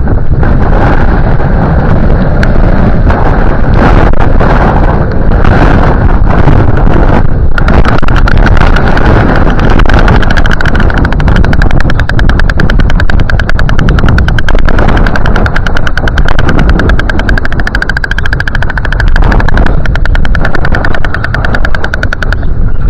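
Strong wind buffeting an outdoor microphone. About a third of the way in, a fast, even rattle joins it and runs until near the end.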